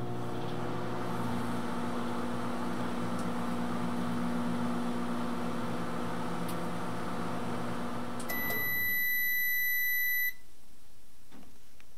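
Microwave oven running with a steady hum through the last seconds of its countdown. About eight seconds in the hum stops and the oven gives one long, high beep of about two seconds, signalling the end of the cooking cycle.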